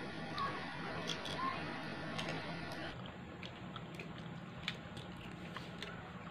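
Boiled balut duck-egg shell crackling in small, scattered clicks as fingers peel it away.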